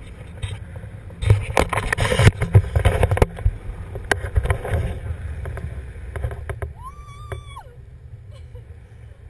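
Wind buffeting the microphone of a pole-held action camera in tandem paraglider flight: a steady low rumble with a cluster of knocks and rattles between about one and three seconds in, the loudest part. About seven seconds in, a short high tone rises, holds and falls.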